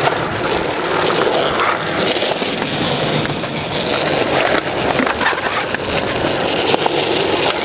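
Skateboard wheels rolling on smooth concrete in a steady rumble, with a few sharp knocks of the board.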